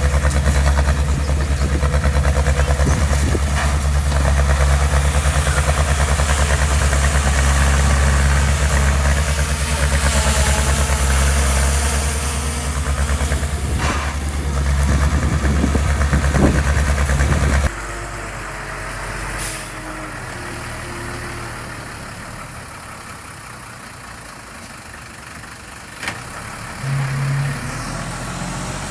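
A heavy construction machine's diesel engine runs loud and steady, then drops off abruptly about two-thirds of the way through to a quieter engine idling, with a few sharp clicks.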